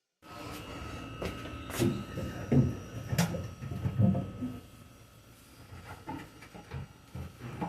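Household objects being handled and set down: a run of scattered knocks, clicks and clunks, loudest in the first half, over a faint steady high-pitched tone.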